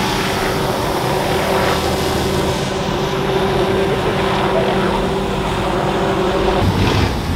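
Helicopter flying overhead: a steady, loud drone of rotor and engine that changes near the end.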